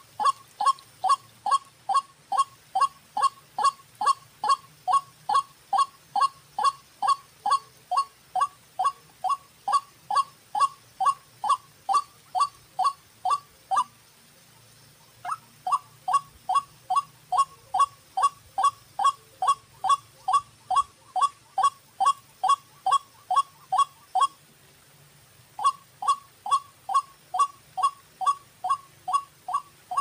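White-breasted waterhen calling: a long series of short, identical notes, nearly three a second, broken by two pauses of about a second, one about halfway through and one near the end.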